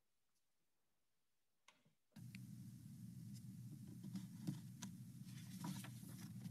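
Near silence, then from about two seconds in a faint steady low hum of room tone with a few faint clicks, as the paused read-along video's audio resumes playing.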